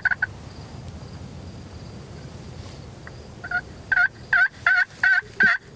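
A run of hen turkey yelps on a turkey call: evenly spaced notes a little under three a second, starting about three and a half seconds in and going on to the end. The tail of a quick burst of turkey notes is heard right at the start.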